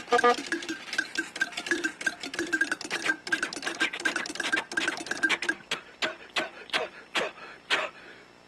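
A mechanical sound-effects prop clattering in a fast run of clicks and rattles with a faint squeak. About five and a half seconds in it thins to single clicks that come slower and slower, then stop.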